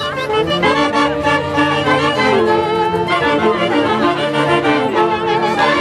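A live Andean orquesta típica playing music for the Chonguinos dance, with several melody instruments holding notes together over a steady accompaniment.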